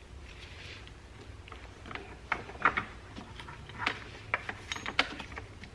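Light clicks and knocks of a 1995 clutch master cylinder being handled and fitted into place at the firewall, starting about two seconds in and coming irregularly, a few louder than the rest.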